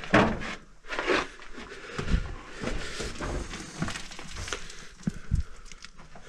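Irregular rustling, scuffs and small knocks from people moving about in a small rock-cut chamber, with handling of the hand-held camera.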